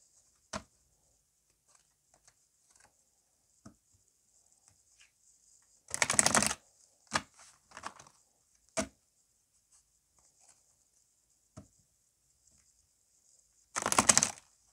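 An Oracle of the Unicorns card deck being shuffled by hand, in two short bursts about six seconds in and near the end. Soft taps and clicks of the cards come in between.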